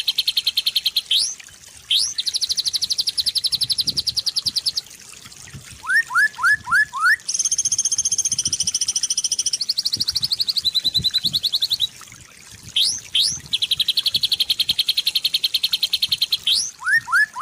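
Jalak kebo (Javan myna) singing: long, rapid trills of evenly repeated high notes, broken by quick rising sweeps and short pauses. Twice, about six seconds in and again near the end, comes a run of five short rising whistles lower in pitch.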